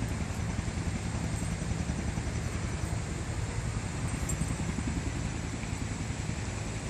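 Steady outdoor background noise: a low, fluttering rumble under an even hiss, with no distinct events.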